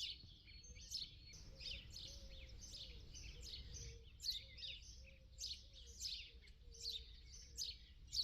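Small songbirds singing and calling: a busy run of quick, high chirps and short trills, one after another, over a low, steady background rumble.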